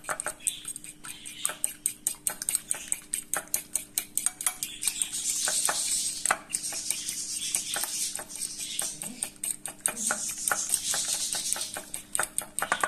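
A fork beating eggs in a ceramic bowl, its tines clicking rapidly and steadily against the bowl's sides.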